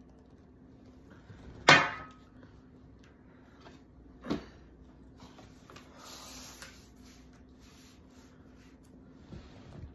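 Handling knocks as a laptop is shifted about on a stack of books on a wooden table: one sharp knock with a short ring about two seconds in, a softer one a little after four seconds, and a brief rustle just after six seconds. A steady low hum runs underneath.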